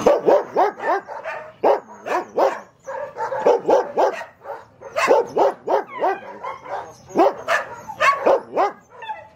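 Dogs barking: short barks in quick runs with brief pauses between them.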